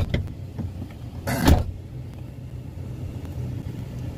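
Low, steady hum of a car running, heard inside the cabin. A sharp click comes right at the start, and a brief loud rustling thump comes about one and a half seconds in.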